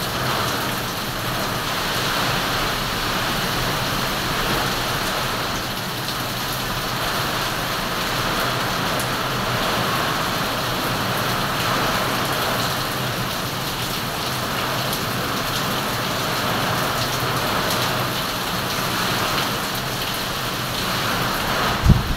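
Steady heavy typhoon rain pouring down amid strong wind, with a low thump near the end.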